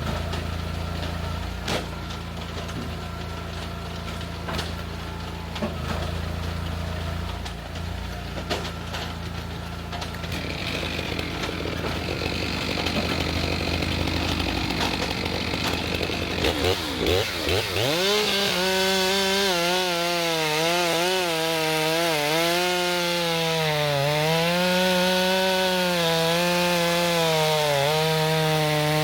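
STIHL MS462 chainsaw idling with a few scattered knocks, then revving up about two-thirds of the way through and running at full throttle through a log, its pitch dipping and recovering as the chain bites.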